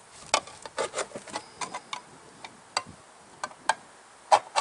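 Tin can of sugar water being opened with a hand can opener: a string of sharp metallic clicks, quick and bunched in the first second and a half, then sparser, with a louder click near the end.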